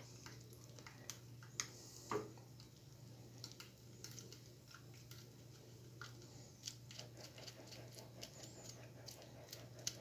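Faint patter and small scattered clicks of blended acerola juice draining through a fine plastic strainer into a glass, over a low steady hum.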